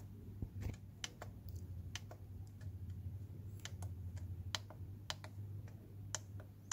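Buttons on a Noyafa NF-858C cable tester being pressed one after another while paging through its continuity-mode menu, about fifteen irregular sharp clicks. A low steady hum runs underneath.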